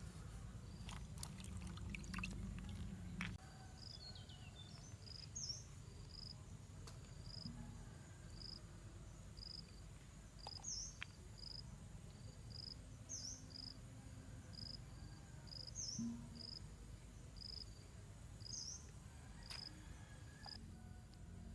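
Quiet outdoor ambience: short high chirps repeating about twice a second, typical of an insect or small bird, with another sweeping-down call every few seconds over a low background hum. A few faint clicks in the first few seconds.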